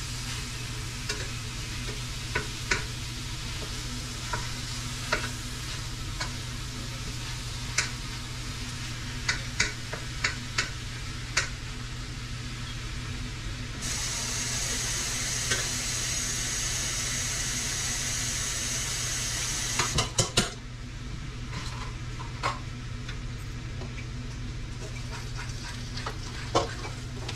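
Raw ground beef sizzling in a skillet, with a spatula scraping and tapping against the pan as the meat is stirred and broken up. About halfway through, a louder hiss of the kitchen tap running joins for about six seconds, followed by a few knocks.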